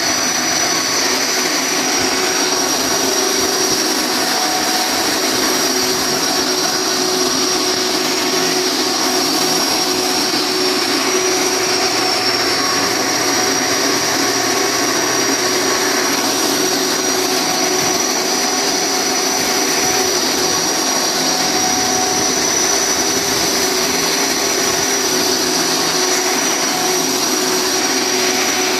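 Steady, loud industrial machine noise: a continuous whir with a constant high-pitched whine that does not change.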